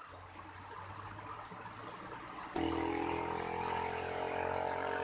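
Faint trickling of flowing canal water. About two and a half seconds in, a steady hum with several pitches starts suddenly and holds level, louder than the water.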